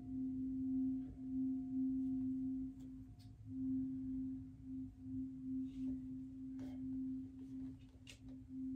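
Steady ringing tone of a singing bowl, pulsing gently in level as it sustains, with a few faint soft clicks and rustles.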